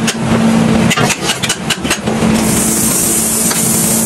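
A motor running with a steady hum, with irregular sharp metallic knocks over it, most frequent in the first two seconds.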